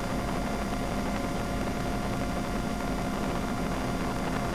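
Steady helicopter cabin noise in flight: a constant drone with a thin, unchanging whine over it.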